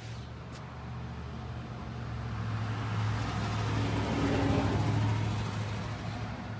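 A car running, a steady engine hum with road and tyre noise that swells to its loudest about four and a half seconds in and then eases off.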